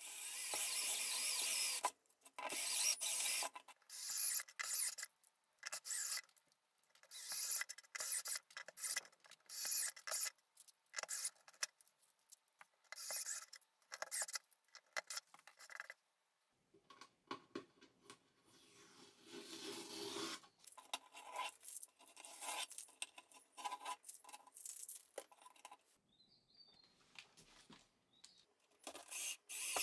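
Step drill bit cutting holes through a plastic cabinet panel: repeated short bursts of scraping and rasping as the bit bites into the plastic, with brief pauses between them. The longest and loudest burst is at the very start.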